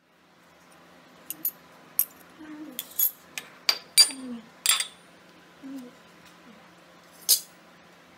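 Metal murukku press parts, the perforated shape discs and the threaded cap, clinking and clattering as they are handled and set down on a hard counter: about ten sharp clinks, the loudest in the middle. A faint low hum runs underneath.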